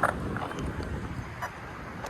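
Large electric RC car driving, mostly a rumble of wind buffeting its roof-mounted camera microphone, with a few short sharp ticks.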